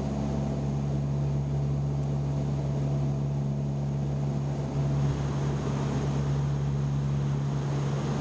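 Steady low engine drone: a constant hum with a low rumble beneath it, holding level throughout.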